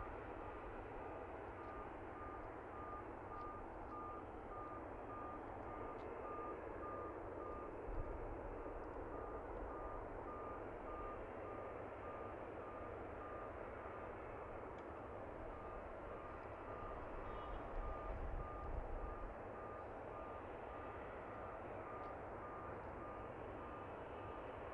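Vehicle reversing alarm beeping steadily at about two beeps a second, with a short pause about two-thirds of the way through, over a steady hum of airport ground noise.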